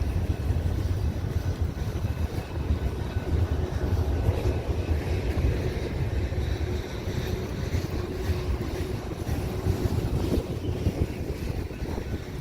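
Freight cars of a general merchandise train rolling past: a steady low rumble with scattered wheel clicks over the rail joints and a faint, thin squeal held through the middle.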